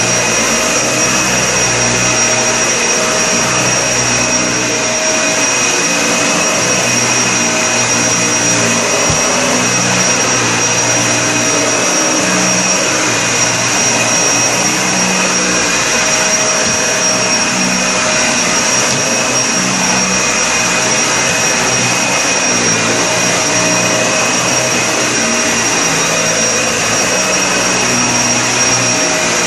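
Vacuum cleaner running continuously with a steady high-pitched whine, its lower hum shifting every second or two.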